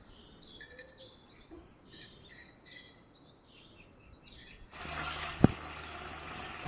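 Small birds chirping in quick, repeated twittering calls. Near the end the sound cuts abruptly to a steady rushing hiss, with a single sharp click soon after.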